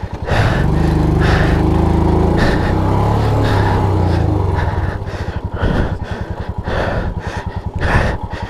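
Motorcycle engine revved hard for about five seconds while the bike is stuck in mud or water, then running lower and unevenly.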